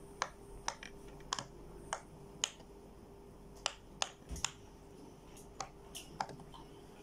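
Sharp, separate clicks from a handheld fidget toy being worked by fingers, about fifteen at uneven spacing, some in quick pairs.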